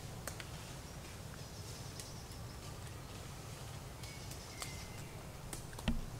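Dry leaf litter crackling and rustling in small scattered clicks as a newborn long-tailed macaque picks at it, over a low steady rumble, with a couple of faint bird chirps midway. A single louder thump comes near the end.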